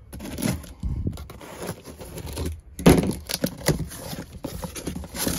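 Utility knife slitting the packing tape on a cardboard box, then the cardboard flaps being pulled open: a string of scrapes, crackles and tape rips, the loudest about three seconds in.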